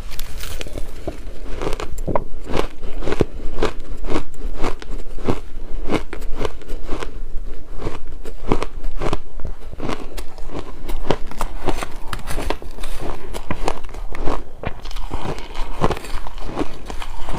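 Close-up chewing and crunching of buckwheat shaved ice: a quick, irregular run of crisp crunches, several a second.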